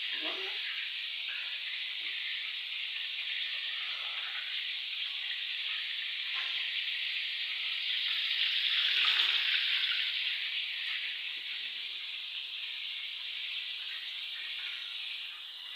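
Flour-coated chicken pieces frying in hot oil: a steady sizzle that swells louder about nine seconds in.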